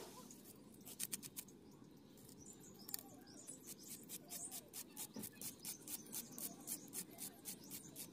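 Onion being sliced against the curved iron blade of a boti: a run of short, crisp cuts, settling into a steady rhythm of about three a second in the second half.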